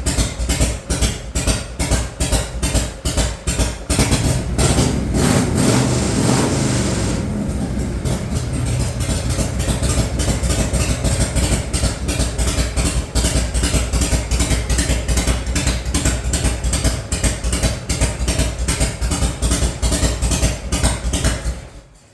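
Harley-Davidson V-twin motorcycle engine running with a loping, uneven idle. It is revved up about four seconds in, settles back to idle, and is shut off near the end.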